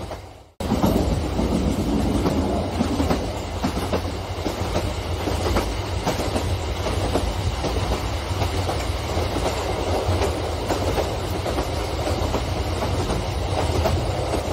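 Large-scale model train coaches rolling along the track: a steady, dense clatter of wheels over the rail with a low hum underneath. The sound drops out briefly about half a second in, then carries on steadily.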